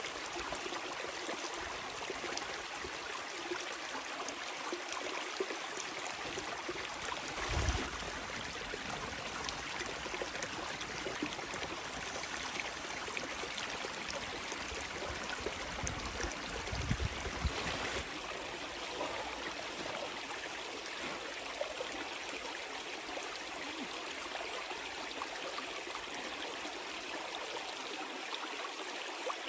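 A steady rushing noise like running water, with a couple of brief low thumps partway through.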